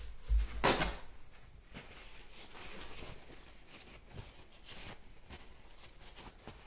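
Handling and cleaning noises from the parts of a linear bearing carriage: one louder, short handling noise just under a second in, then faint scattered clicks and rubbing.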